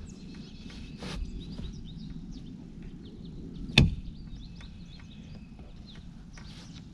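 A boat hatch lid being shut onto a flush slam latch: one sharp knock about four seconds in as the latch catches, with a lighter knock about a second in.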